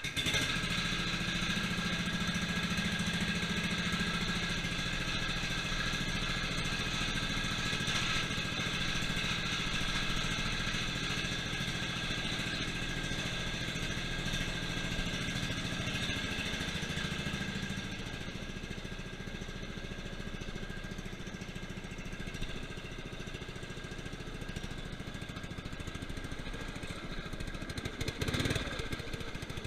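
Murray lawn tractor's 12.5 hp Briggs & Stratton engine catching on the push-button start and running steadily. About 18 seconds in it settles lower and quieter, as if throttled back, with a brief louder noise near the end.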